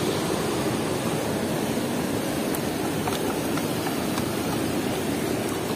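Steady rush of turbulent water pouring out through a sluice gate.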